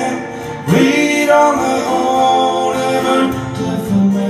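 A man singing a Norwegian love song to his own acoustic guitar, the voice coming in strongly just under a second in.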